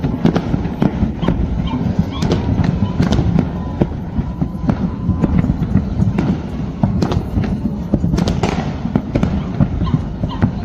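Fireworks display: a dense run of bangs and crackling bursts going off several times a second over a continuous low rumble of further explosions.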